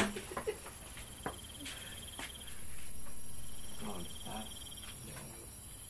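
Crickets chirping steadily in the night background, with a few soft clicks and faint low voices about four seconds in.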